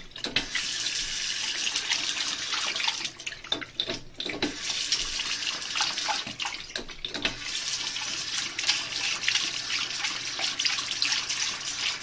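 Bathroom sink faucet running, the stream splashing against a drinking dog's muzzle and into the basin; the splashing thins out briefly twice.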